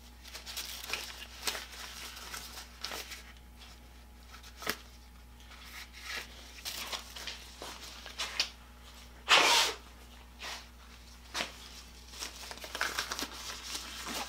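Black rubber gloves being handled and pulled onto the hands: scattered rubbery rustles, crinkles and small clicks, with one louder rustling burst about nine and a half seconds in.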